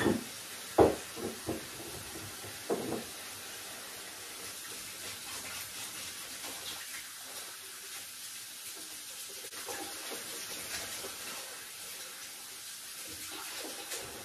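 Kitchen mixer tap running steadily into the sink while hands are washed under it. A few sharp knocks sound in the first three seconds.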